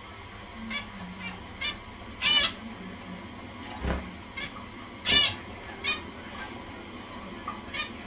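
Zebra finch calls: short nasal calls repeated at irregular intervals, about ten of them, the two loudest and longest about two and five seconds in.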